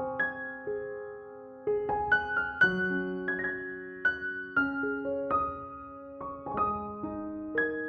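Slow background piano music: soft chords and single melody notes struck and left to ring.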